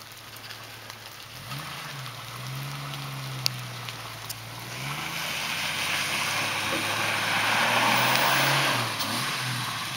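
Jeep Cherokee XJ engine running at low revs, its pitch rising and falling several times as it is driven off-road. A few sharp ticks come a few seconds in, and a rushing hiss swells from about halfway through and eases off near the end.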